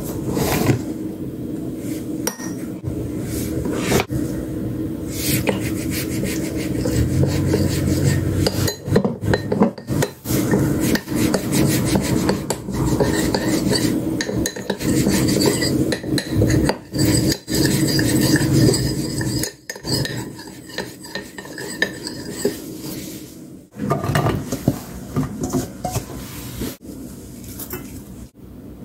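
A spoon stirring starch slurry in a small glass bowl, clinking and scraping against the glass in many short strokes, over a steady low hum.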